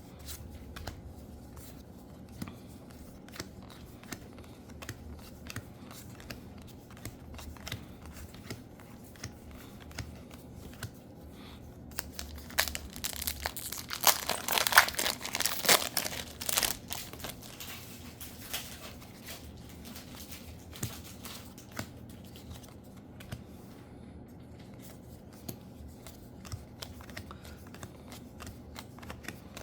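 Foil booster pack wrapper crinkling and tearing open, loudest in a dense stretch through the middle, with soft clicks of trading cards being handled before and after.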